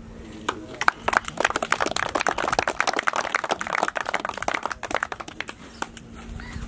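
A small crowd applauding: a patter of hand claps that starts about a second in and dies away near the end.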